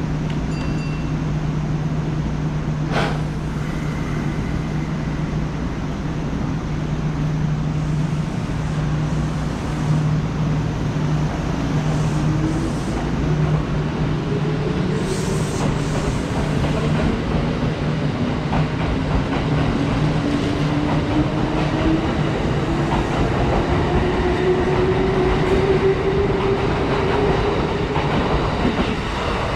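Kintetsu electric train at the platform and pulling out, with a steady low hum and, from about twelve seconds in, its traction motors whining in a slowly rising pitch as it gathers speed. There is one sharp click a few seconds in.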